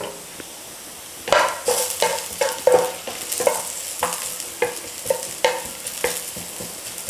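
Sliced onions sizzling in oil in a non-stick pan, frying down with a little sugar to caramelize. From about a second in, a spatula stirs them in a run of short scraping strokes, roughly two a second, over the steady sizzle.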